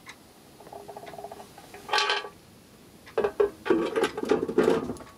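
The clear cover of a Landis & Gyr electricity meter being handled and fitted back onto the meter base. A faint scrape comes about a second in and a short rub near two seconds, then a run of hard knocks and clatter in the second half.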